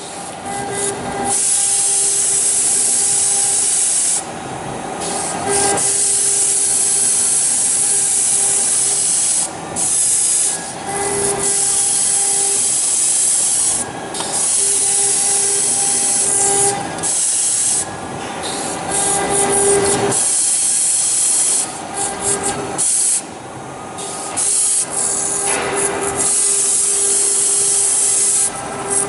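AKM1325 CNC router cutting acrylic sheet: a loud hissing cutting noise over a steady spindle whine, dropping off briefly every few seconds and coming back.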